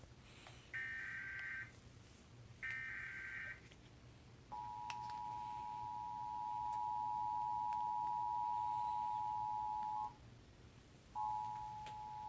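Emergency Alert System transmission: two one-second bursts of raspy, warbling SAME header data with a second of pause between them, then the steady two-tone EAS attention signal for about five and a half seconds. After a one-second break, a short second burst of the two-tone signal follows.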